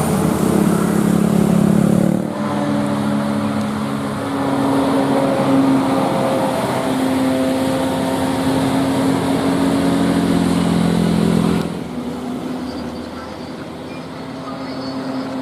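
Bus telolet horn playing a tune of long held notes, sounding muffled from inside the bus cabin. It cuts off about twelve seconds in, leaving vehicle noise.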